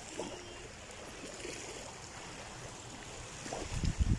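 Shallow sea water gently lapping and washing at the shoreline at low tide. In the last second there are a few louder low rumbles of buffeting on the microphone.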